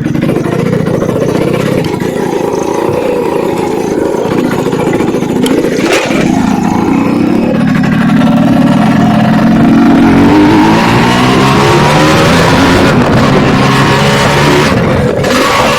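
Suzuki Samurai two-stroke motorcycle engine running under load off-road, its pitch climbing as it revs up about halfway through and then holding high.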